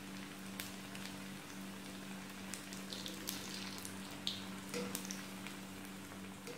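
Mysore bonda dumplings deep-frying in hot oil in a wok: a steady sizzle with scattered pops and crackles while a wire-mesh skimmer stirs them. A steady low hum runs underneath.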